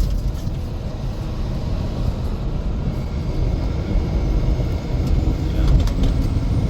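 Steady low rumble of road and engine noise inside a vehicle's cabin while driving on the highway.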